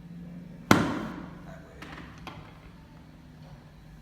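A single sharp knock about three-quarters of a second in, dying away over half a second: the thrust of a chiropractic knee adjustment that rotates the tibia inward under traction.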